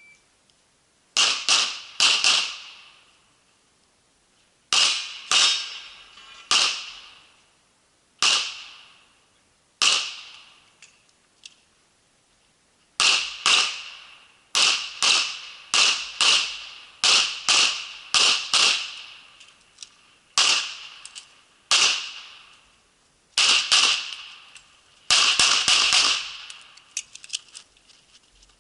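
Pistol shots fired in a practical-shooting course of fire: short groups of two or three quick shots, broken by pauses of one to three seconds, then a faster run of shots through the middle and a tight burst near the end, each shot ringing off briefly.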